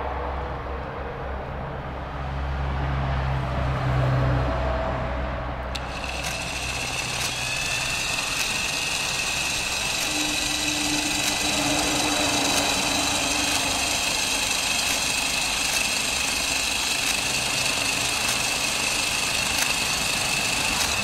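Homemade electric trolling motor, built from an 18V brushed DC cordless-drill motor and planetary gearbox turning an 8-inch model-aircraft propeller, starting suddenly about six seconds in and then running with a steady high whine. It is run dry, in air, off a solar panel. Before it starts there is a low rumble.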